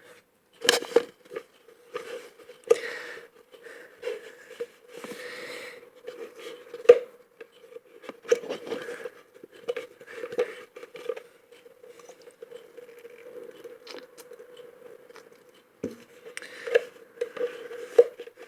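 Slime being stirred in a small cauldron: irregular scraping, clicking and squishing as the stirrer works the sticky mixture against the pot, over a faint steady hum.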